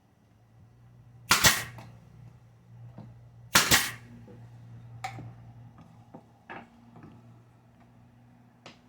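Pneumatic nail gun firing nails into wooden beehive frame parts: two loud sharp bangs about two seconds apart, each a quick double shot, followed by a few lighter clicks and knocks.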